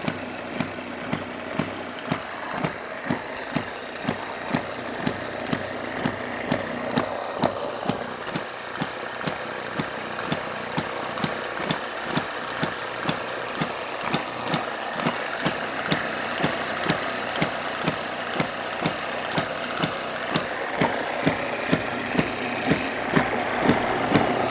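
Small single-cylinder four-stroke petrol hit-and-miss model engine running on its own, firing with a sharp pop about twice a second.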